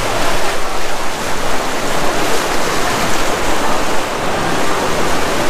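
Steady rushing of falling or splashing water.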